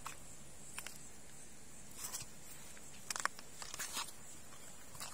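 A few short, scattered splashes and footfalls of someone wading slowly through shallow river water among stones, over a steady high insect drone.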